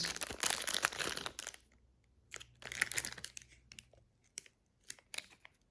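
Packaging being handled, rustling and crinkling in two bursts with a few sharp clicks near the end.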